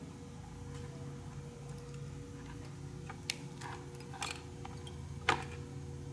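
A few small sharp clicks of plastic turn-signal wire connectors being handled and pushed together, the last one, about five seconds in, the loudest, over a steady low background hum.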